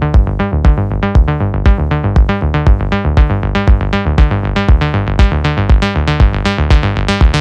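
Melodic electronic dance music: a steady kick drum about two beats a second under a fast run of short, repeating synthesizer notes.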